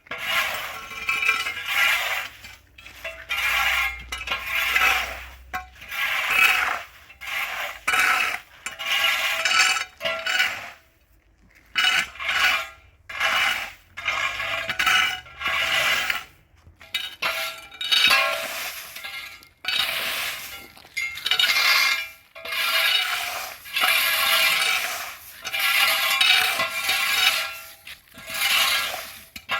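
Repeated scraping strokes, a hand tool worked back and forth against a hard surface, about one stroke a second, with a short break about ten seconds in.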